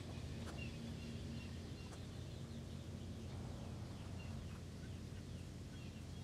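Faint outdoor background of scattered short, high bird chirps over a low, steady rumble.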